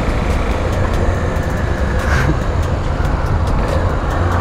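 Honda Tornado 250's single-cylinder engine running steadily as the motorcycle rides through city traffic, heard from a camera on the bike, with a continuous low rumble of engine, wind and road noise.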